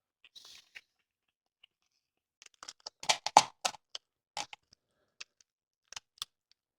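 Silicone putty dams being peeled and pulled off the hardened plug compound in a bowling ball's finger holes: a scatter of short crackles and scrapes, busiest from about two and a half to four seconds in.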